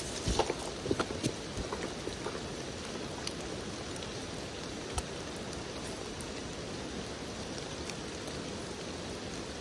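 Rain falling under trees: a steady patter, with louder drops tapping close by, several in the first two seconds and one more about halfway.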